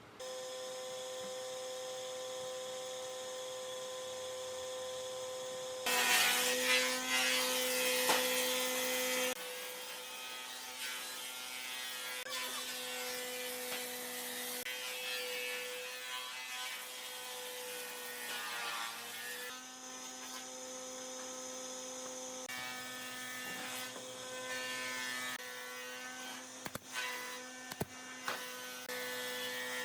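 An electric power tool's motor running with a steady whine. It gets louder and rougher for about three seconds from six seconds in, and its pitch sags briefly about two-thirds of the way through.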